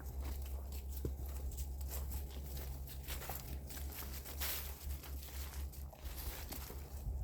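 Footsteps walking along a forest trail, an uneven run of crunching steps, over a steady low hum.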